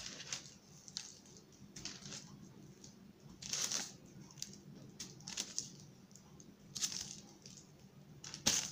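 Hands rolling a seasoned ground-beef and breadcrumb mixture between the palms into meatballs: faint, irregular squishing and rustling, with a few slightly louder soft handling noises.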